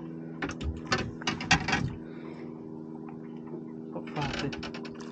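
Fishing reel clicking rapidly in two spells, each about a second and a half long, over a steady low hum.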